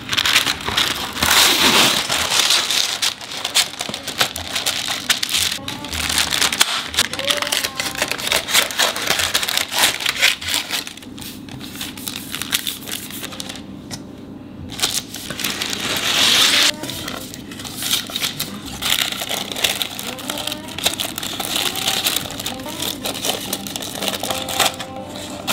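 Non-stick baking paper being pulled from its roll, folded and pressed into a springform cake tin, crinkling and rustling in several bursts.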